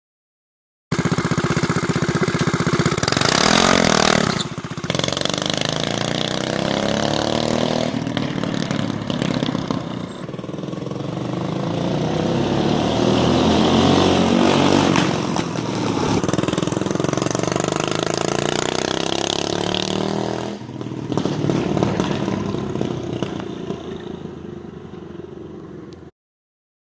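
Doodlebug mini bike's small single-cylinder engine running and revving as it is ridden, its pitch rising and falling with speed, with several swells and dips in loudness. It fades near the end, then cuts off suddenly.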